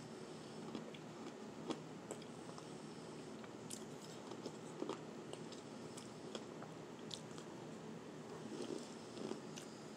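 Close-up chewing of powdery shaved ice: irregular soft crunches with sharper cracks every second or so.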